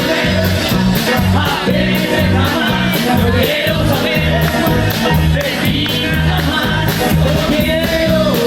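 Rockabilly band playing live, with a steady driving bass line and drums keeping a fast, even beat.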